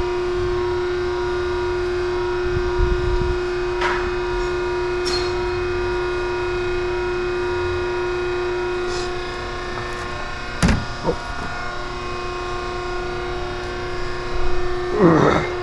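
A steady machine hum holding one tone with fainter higher tones above it. It is broken by a sharp knock about two-thirds of the way through, a few fainter clicks, and a short wavering squeak near the end.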